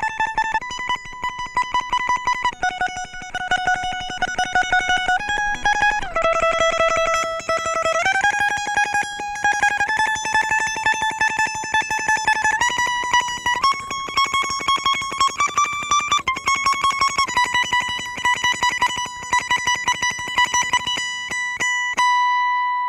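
Guitar melody playing in a loop with each note rapidly tremolo-picked, the line stepping up and down every second or two. Near the end the picking stops and one note rings on and fades.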